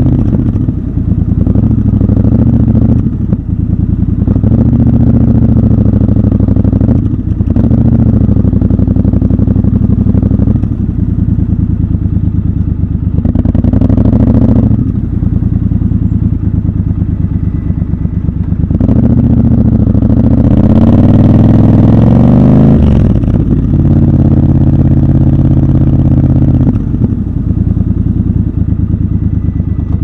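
Triumph Scrambler 1200 XC's parallel-twin engine and exhaust, heard from the rider's seat, running at low revs with several brief gear changes. About two-thirds of the way in there is one longer acceleration, rising in pitch for a few seconds before the next shift.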